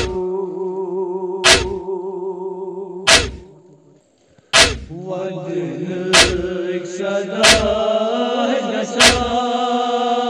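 Men's voices chanting a Kashmiri noha (Shia lament) in held notes without instruments, with a heavy chest-beating thump about every second and a half. The chant fades and breaks off briefly a little before the middle, then resumes.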